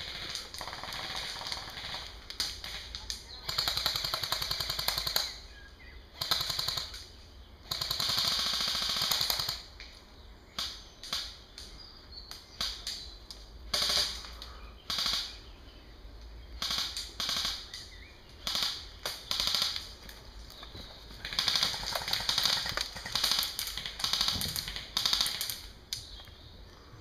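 Airsoft guns firing rapid full-auto bursts, the longest lasting about two seconds, mixed with short bursts and single shots.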